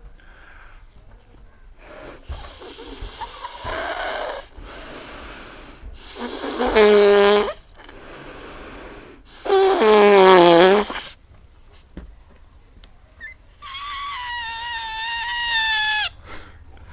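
Breathing in and out of a latex balloon of nitrous oxide: airy breaths, then two loud pitched sounds about a second and a half long, each falling in pitch. Near the end a high, steady squeal for about two seconds as gas escapes through the balloon's pinched, stretched neck, cutting off suddenly.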